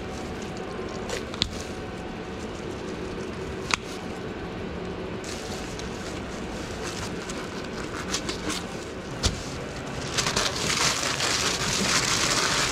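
Gloved hands handling and closing a sub sandwich over a steady background hum, with a few sharp knocks, then sandwich wrapping paper crinkling loudly from about ten seconds in as the sandwich is wrapped.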